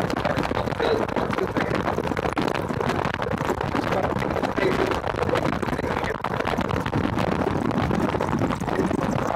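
Golf cart driving steadily along a paved road: continuous motor and tyre noise, with wind buffeting the microphone.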